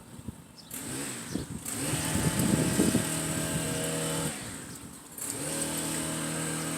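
A small engine running at a steady speed in two spells, easing off briefly in the middle and coming back up.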